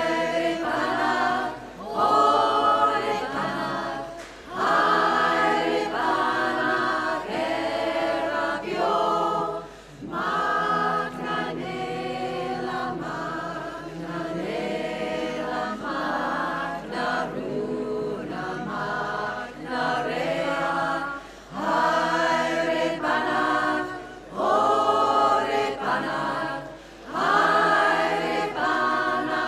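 Women's choir singing a cappella, in short phrases with brief breaks between them.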